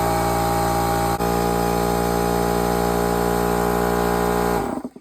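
Small 6-litre SGS portable air compressor running steadily, filling its tank, then cutting out and winding down about four and a half seconds in.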